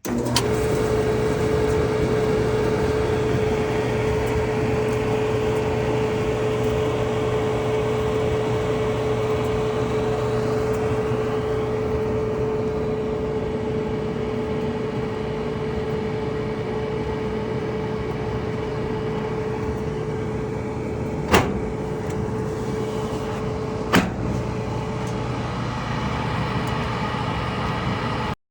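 Whirlpool electric dryer starting and running with its drum turning on a newly fitted drive belt: a steady motor and drum rumble with a constant hum. Two sharp knocks come about 21 and 24 seconds in.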